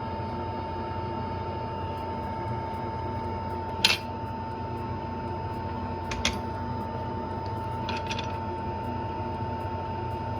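Steady mechanical hum of bench equipment with a constant high whine, broken by a few sharp clicks of small metal tools about four, six and eight seconds in.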